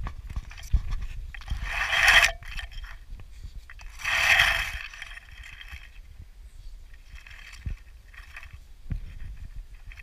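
Grass rustling and scraping right at the microphone as a small dog noses about in it, with two louder swells about two seconds apart and fainter ones later, over a steady low rumble.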